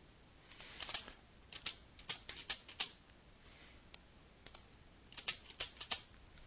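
Computer keyboard keys typed in three short runs of quick keystrokes.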